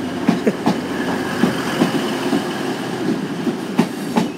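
Class 185 diesel multiple unit pulling out and passing close by, its wheels clicking irregularly over rail joints with a steady running rumble and a few brief squeaks.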